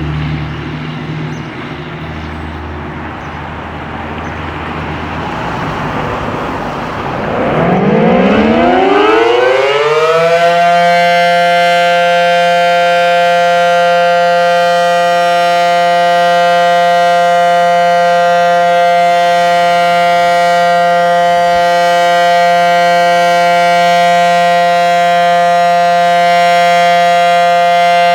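Federal Signal SD-10 dual-tone tornado siren sounding full alert. After about seven seconds of low rumble it winds up in a rising pitch over about three seconds, then holds a loud, steady two-note tone.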